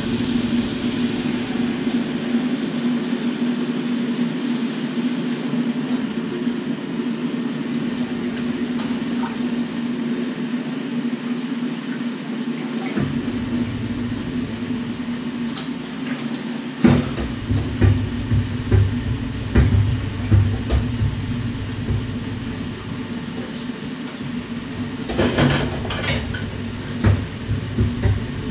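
Washing up at a kitchen sink. A tap runs for the first five seconds or so and is then shut off. Pots and dishes are then handled in the sink, with irregular knocks and a short burst of clattering near the end, all over a steady low hum.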